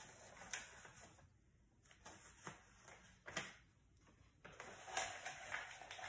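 Faint handling noises: a few light clicks and soft rustling as plastic coffee-maker parts, the brewing basket and its accessories, are picked up and moved about.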